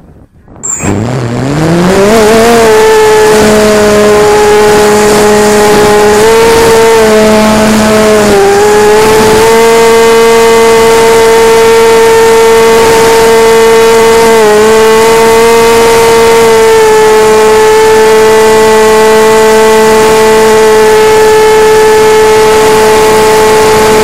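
Small electric motor and propeller of an FPV model plane spinning up from a standstill about a second in, with a sharply rising whine. It then runs at a steady high whine at full throttle, with brief small dips in pitch, under wind noise on the nose-mounted camera's microphone.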